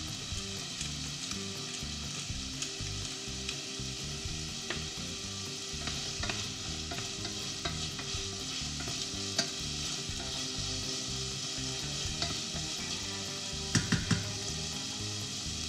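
Food frying in a pot with a steady sizzle, with scattered small clicks of a utensil. Near the end come three quick, sharp knocks of a utensil against a bowl.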